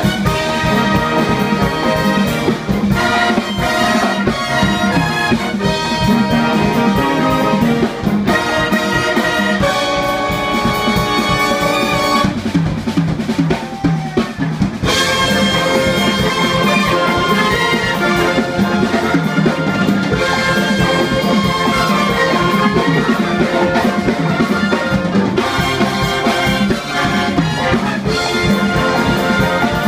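Jazz big band playing, trumpets and trombones over a drum kit. About twelve seconds in the sound thins out for a couple of seconds before the full band comes back in.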